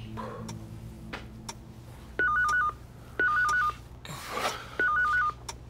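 Electronic telephone ringer ringing: short bursts of a rapid trill between two high tones, two bursts, a pause, then two more.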